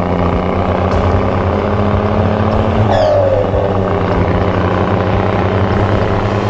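Steady low engine drone of an RC miniature vehicle, with a short falling whine about three seconds in.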